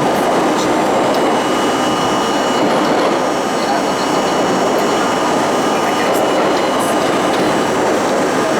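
Budd-built R32 subway train running at speed through a tunnel: a steady, loud rumble of wheels on rail, with a faint steady whine and occasional small clicks.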